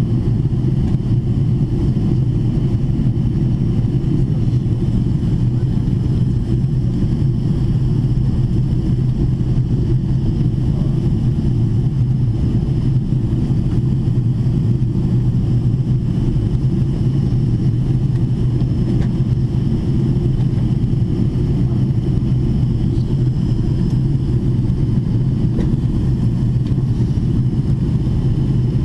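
Steady cabin drone inside a Boeing 777-300ER descending with its wing in view: a deep, even rumble of airflow and engine noise with faint steady high tones above it, unchanging throughout.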